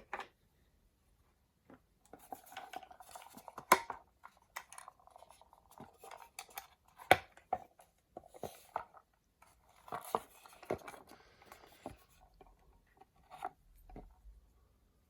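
Metal chucks and key of a Bergeon 2301 clock mainspring winding set being handled: an irregular string of small clinks, clicks and light rattles, the sharpest about four and seven seconds in.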